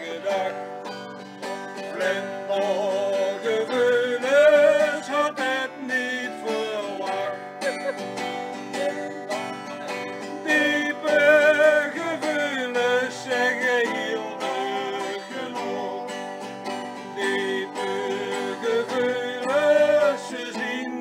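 Acoustic guitar strummed as accompaniment while a man's voice sings the melody with vibrato, a live sing-along of a Limburgish dialect song.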